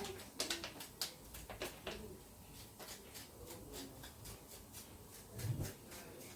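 Irregular light clicks and taps of hand work on a cut squash while its seeds are cleaned out, with a soft low thump about five and a half seconds in.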